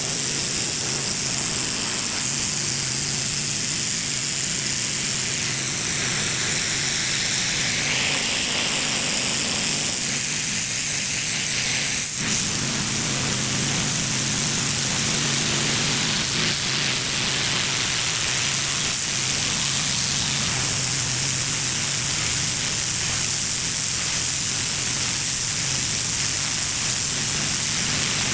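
Pressure washer spraying a concrete driveway: a steady hiss of high-pressure water on the surface, with a steady low hum from the machine underneath. A single sharp click about twelve seconds in.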